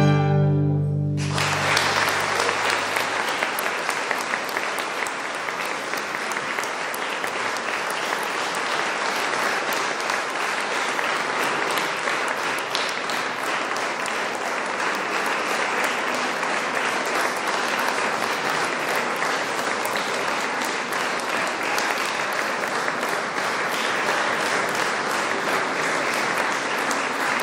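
Violins and cello end a piece on a held final chord, cut off about a second in, and an audience applauds.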